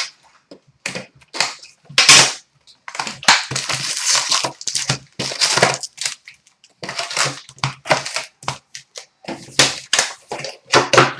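Hockey card boxes and packs being opened by hand: irregular bursts of tearing cardboard and crinkling foil wrappers, with a few sharp clicks.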